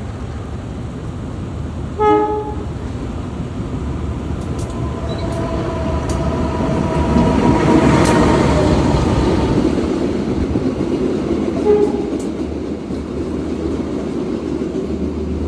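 A train passing close by. Its horn gives a short toot about two seconds in and another near twelve seconds, over a rumble that builds to its loudest midway and then eases off.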